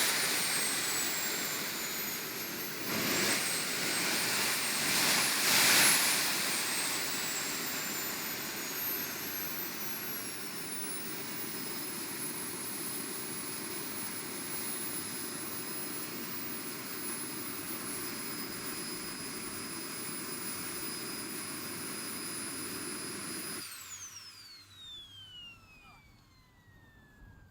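Small model gas-turbine jet engine on a jet-powered buggy whining loudly, surging in pitch and loudness three times in the first few seconds, then settling to a steady high whine. About 24 seconds in it is shut down, and the whine falls away steeply as the turbine spools down.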